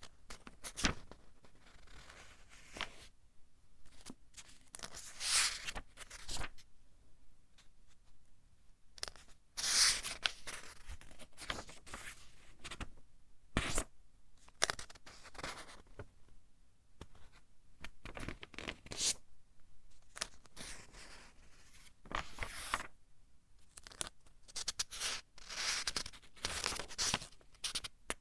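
Pages of a thin-paper book being turned one after another, each turn a brief papery rustle with a sharper flick at times, with short pauses between turns.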